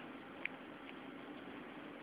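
Faint steady room hum and hiss, with one small click about half a second in.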